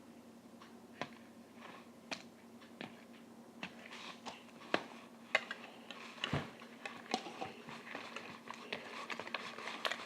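Homemade glue-and-liquid-starch slime being kneaded by hand: faint, irregular sticky squelches and clicks, coming more often in the second half.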